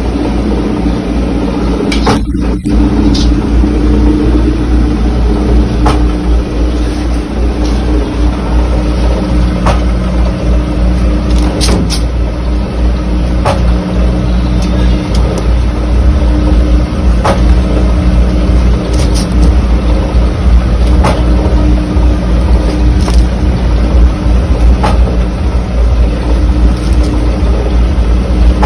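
Steady low mechanical hum with a sharp click every two seconds or so.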